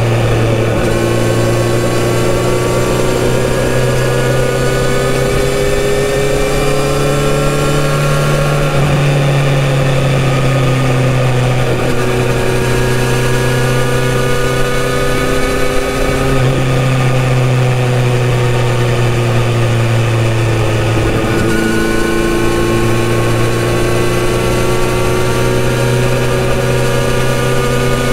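Kawasaki Z900RS's inline-four engine running through a full-system exhaust while the motorcycle rides along, its note climbing slowly in pitch and stepping back down a few times. Heard inside a road tunnel.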